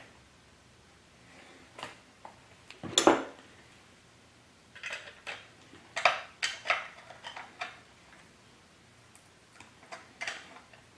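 Metal clinks and rattles from hands and a wrench working a chainsaw's bar and chain while the chain tension is set: a sharp clack about three seconds in, a cluster of lighter clinks a couple of seconds later, and a few more near the end.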